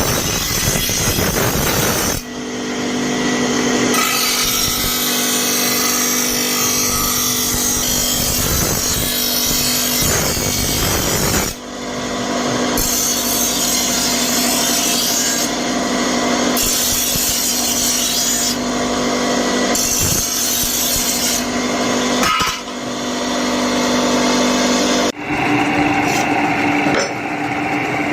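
Power grinder grinding a steel forage-cutter blade: a steady motor tone under a continuous rasping grind. The sound changes abruptly a few times.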